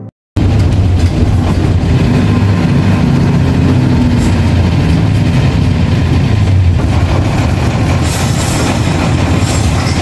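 Loud, steady noise inside a moving bus with a window open: wind buffeting the microphone over the rumble of the bus's front-mounted engine and the road. It cuts in abruptly just after the start.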